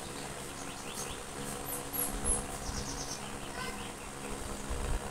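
A steady low buzzing hum, with a few short high chirps about two seconds in.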